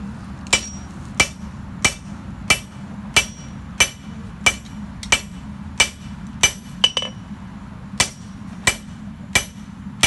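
Forging hammer striking a red-hot 1084 high-carbon steel knife blade on an anvil while the tip is drawn out, in steady blows about every two-thirds of a second, each with a short metallic ring. A quick cluster of lighter taps comes about two-thirds of the way through. Under the blows runs the steady rush of the propane forge's burner.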